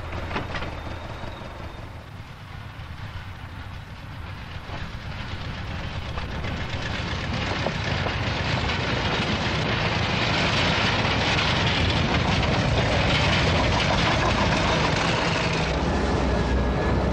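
Heavy industrial machinery running: a low steady hum with dense mechanical noise over it, which builds up over the first half and then holds loud and steady.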